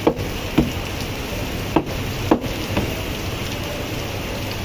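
Butcher's cleaver chopping raw meat on a wooden stump block: about five sharp chops at uneven intervals in the first three seconds, over a steady background hiss.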